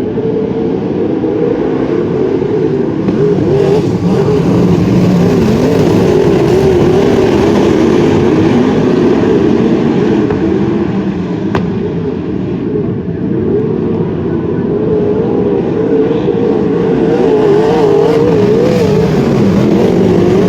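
Wingless sprint car engines running hard on a dirt oval, their pitch rising and falling as the cars go through the turns and down the straights. The sound builds over the first couple of seconds and then stays loud.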